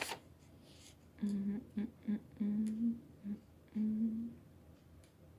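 A woman humming about six short notes to herself at a low, fairly even pitch, the last few gliding slightly upward.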